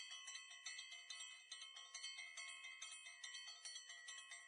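Faint intro music of bell-like chimes, notes struck in a quick, even run several times a second.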